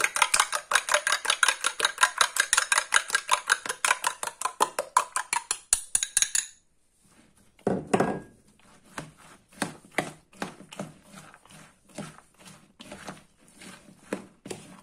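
A metal spoon clinks rapidly against a cut-glass dish, several ringing strokes a second, as eggs are beaten; it stops about six and a half seconds in. After a short pause, a fork stirs chopped onion and raw egg in a plastic bowl, with softer, duller clicks at a slower pace.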